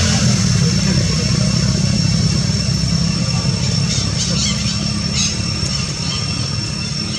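Steady low machine hum, like an engine running, with a thin steady high whine above it and a few short high chirps about four to five seconds in.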